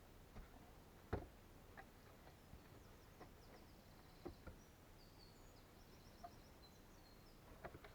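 Quiet woodland ambience: a small bird sings faintly in quick runs of short, high notes through the middle, and a few soft knocks sound, the loudest about a second in.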